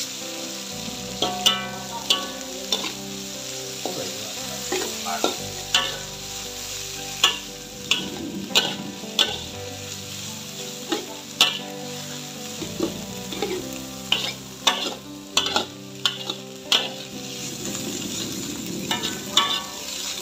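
Durian flowers stir-frying in a metal wok, sizzling, while a metal spatula scrapes and knocks against the pan in irregular sharp clacks.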